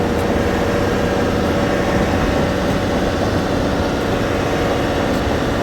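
Heavy diesel engine idling steadily, a constant low hum with no change in speed.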